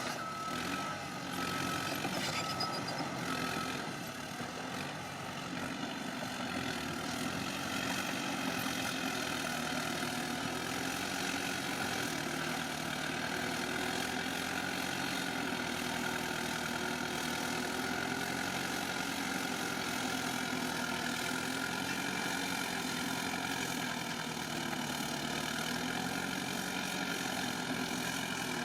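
Bulldozer's diesel engine running steadily, its pitch drifting slowly up and down as the load changes while it pushes soil. A few short beeps sound in the first few seconds.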